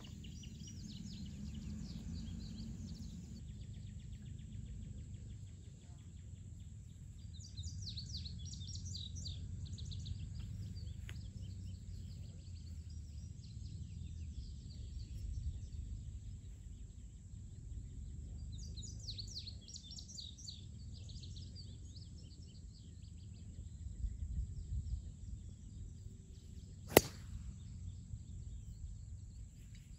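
Birds singing in two spells over a low steady rumble of wind on the microphone, then near the end a single sharp crack of a driver striking a golf ball off the tee.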